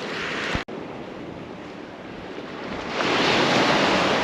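Ocean surf washing on the beach, a steady rush of waves that swells louder about three seconds in as a wave breaks.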